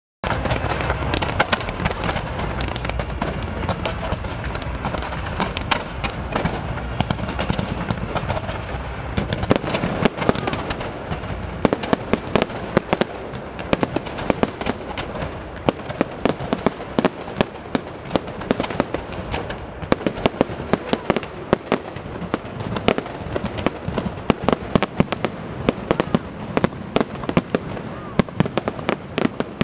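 Fireworks display: a dense, continuous run of bangs and crackles from aerial shells and ground fountains, with a steady rushing noise under it at first and sharper, more separate bangs from about ten seconds in.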